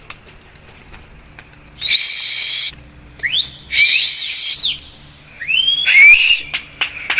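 A person whistling loudly, several long breathy whistles one after another, each rising in pitch. This is a pigeon keeper's whistle to drive freshly released pigeons up into the air.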